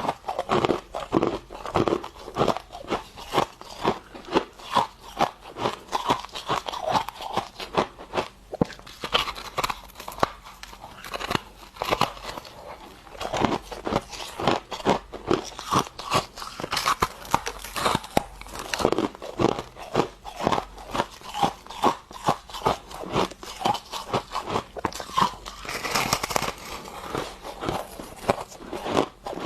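Close-up crunching and chewing of freezer frost: rapid bites and crunches, several a second.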